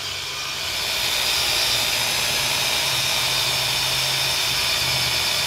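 Handheld rotary tool with a buffing wheel running steadily against a motorcycle's aluminum cylinder head fins, polishing them with compound; a steady high whine.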